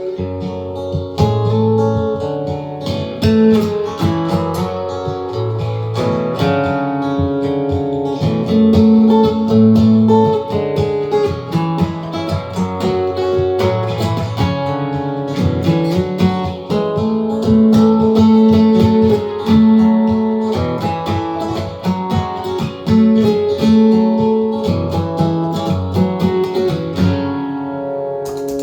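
Acoustic guitar music, plucked and strummed notes at a steady pace.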